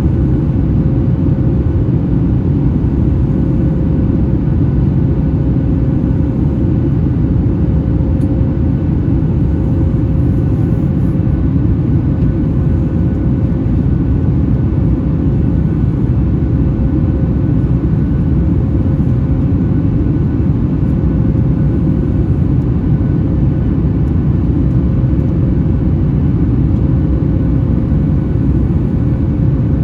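Boeing 737 MAX 8's CFM LEAP-1B jet engines running at steady thrust: a constant deep roar with a faint steady hum above it, the even airliner noise of the climb after takeoff.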